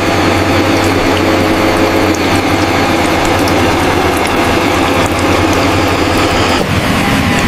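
A machine running with a steady, rapid mechanical rattle over a low hum; the sound shifts about six and a half seconds in.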